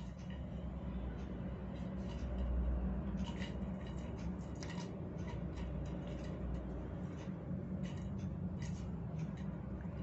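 A kitten bats a plastic drinking straw around on a ceramic tile floor, making light, irregular clicks and scratches, over a steady low background hum.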